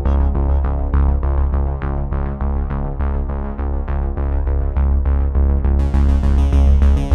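Electronic background music: synthesizer chords over a heavy bass with a steady beat. The treble is filtered out for most of it and opens back up suddenly near the end.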